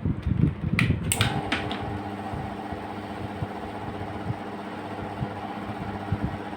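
Ceiling fan running with a steady electrical hum, the humming typical of a fan powered from a UPS/IPS inverter. A few sharp clicks come about a second in, just as the hum sets in.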